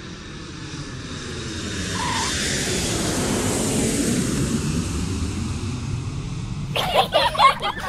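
A vehicle passing by: a rushing noise that builds to a peak about halfway through and then fades away. Near the end, music and laughter come in.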